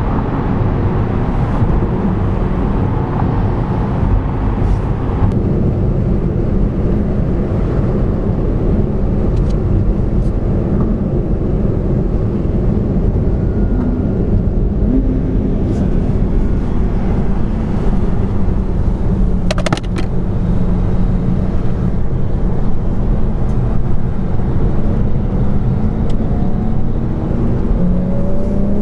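Steady drone of a car driving at motorway speed, heard from inside the cabin: low road rumble with a humming engine note. Near the end an engine note rises as a car accelerates.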